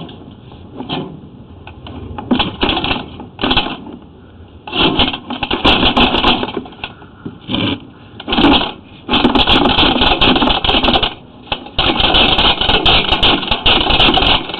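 Sewer inspection camera and its push cable rattling and scraping in repeated bursts, longer and closer together toward the end, as the camera is shoved against a snag in corroded cast iron pipe and sticks there.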